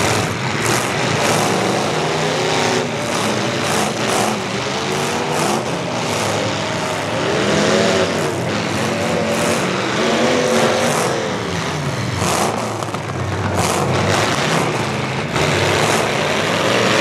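Several demolition derby trucks' engines revving, their pitch rising and falling over and over, with scattered sharp bangs from the trucks crashing into one another.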